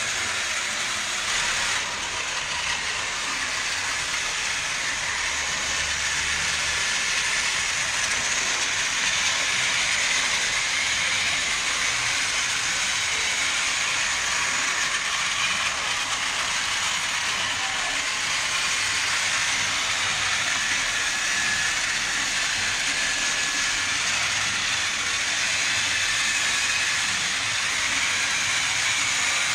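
Battery-powered toy train running steadily along a plastic track, its small motor and gears giving a continuous whirring hiss with a faint wavering whine.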